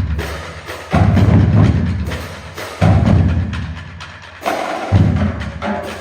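High school marching drumline of snares, tenors and bass drums playing a warm-up exercise together: rapid, dense strokes with a heavy low drum swell about every two seconds.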